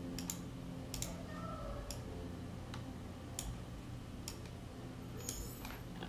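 Scattered single clicks of a computer mouse, about one a second, over a faint steady low hum.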